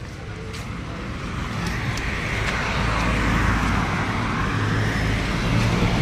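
Road traffic: a passing vehicle whose noise builds over a few seconds, with a low engine rumble under it.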